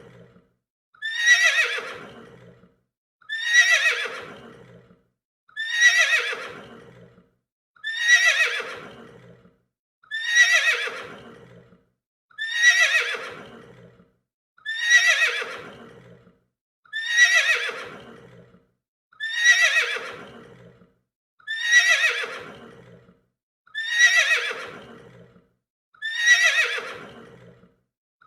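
Horse whinnying, the same neigh repeated over and over about every two and a quarter seconds. Each call starts high and loud, then slides down in pitch and fades.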